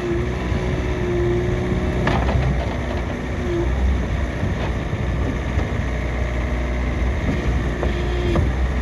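Skid steer's Kubota diesel engine running with a steady low rumble, with a steady whine over it for the first few seconds that returns briefly near the end. A couple of sharp knocks, about two seconds in and near the end.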